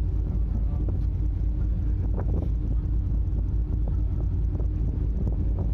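Deep, steady rumble of a drift-ice sightseeing icebreaker's engines under way, with a steady hum over it and wind buffeting the microphone.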